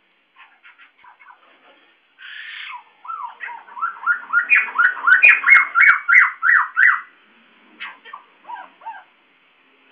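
White-crested laughingthrush calling: a few soft chattering notes and a short harsh burst, then a loud, rapid run of looping notes, about three a second, that builds up and breaks off about seven seconds in, followed by a few softer notes.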